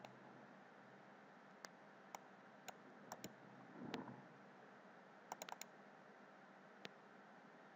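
Faint computer mouse clicks and keystrokes: single sharp clicks scattered through, with a quick run of four clicks about five and a half seconds in, over a low steady hiss. A soft low rustle comes about four seconds in.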